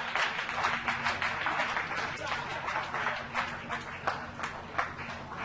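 A crowd applauding, many hands clapping at once, easing off slightly toward the end.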